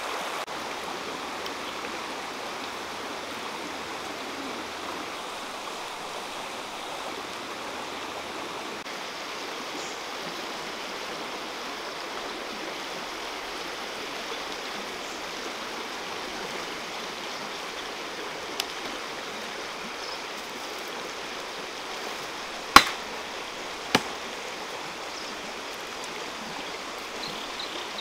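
Shallow stream running over rocks, a steady rush of water. Near the end, two sharp knocks about a second apart cut through it, with a fainter click a few seconds before.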